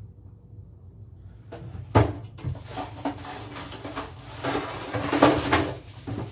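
A sharp knock about two seconds in, then several seconds of clattering and rustling as things are handled and moved about in a small room.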